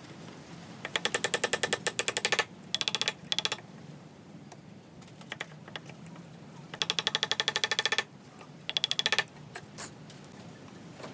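A wood chisel being struck in rapid taps, about ten a second, driving it down into a clamped timber to cut out a joint. The taps come in four runs, two longer ones and two shorter ones.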